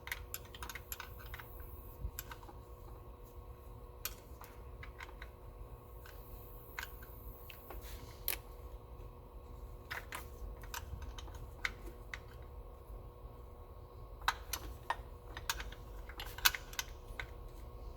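Scattered, irregular light clicks and taps of hand tools and small metal parts being handled as a bolt is tightened on the engine, with a few sharper clicks near the end. A low steady hum runs underneath.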